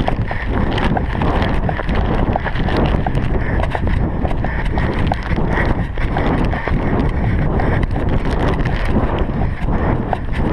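Wind and handling noise on a body-worn GoPro microphone during a run across grass. Frequent short crackles and knocks come from the plastic map bag being handled and from the camera jostling.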